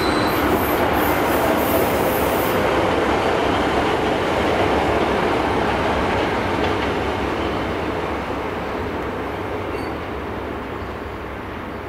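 Class 43 HST power car's diesel engine running, with wheel and track noise as the train moves over the pointwork. Fades through the second half.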